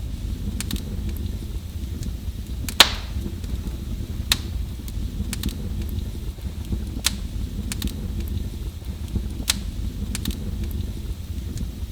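Wood fire burning in a fireplace: a steady low rumble of the flames with sharp crackles and pops about once a second, the loudest about three seconds in.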